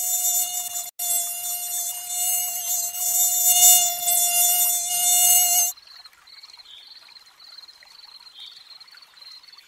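Mosquito's high whining buzz, steady in pitch, with a brief break about a second in. It cuts off sharply after about six seconds, leaving faint chirping in the background.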